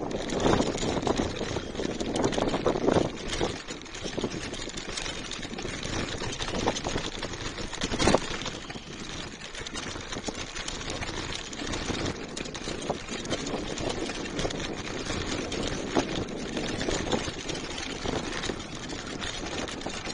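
Bicycle rolling over cobblestones, picked up through a handlebar-mounted smartphone: a continuous rough rumble and rattle from the tyres, bike and phone mount, with one sharp knock about eight seconds in.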